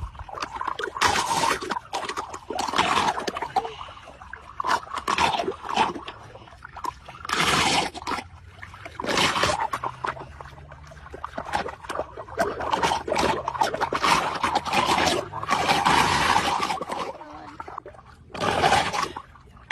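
Irregular scraping and splashing of water in a drain, in repeated bursts of a second or so, while a turtle stuck in the drain is worked free.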